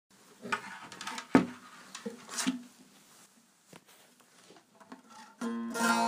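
Bağlama (long-necked Turkish saz) being played: a few scattered plucked notes in the first couple of seconds, a quiet stretch, then a full chord rings out loudly near the end.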